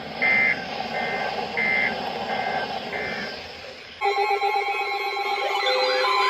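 Weather radio end-of-message data bursts: short two-tone digital chirps, about one and a half per second, over radio hiss, marking the end of the broadcast alert. About four seconds in, a loud layered electronic alert signal with steady and warbling tones starts, the start of the next alert.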